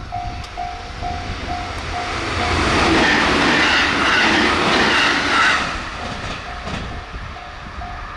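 JR Central 313 series electric train passing at speed (about 112 km/h). Its noise swells about two and a half seconds in, peaks for about three seconds, and fades after about six seconds. A level-crossing warning bell dings about twice a second throughout, drowned out while the train goes by.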